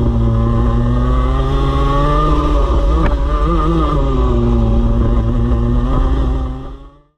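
Racing kart engine heard from an onboard camera, running hard. Its pitch drops as it slows for a corner about three seconds in, climbs again, then sags once more before the sound fades out near the end.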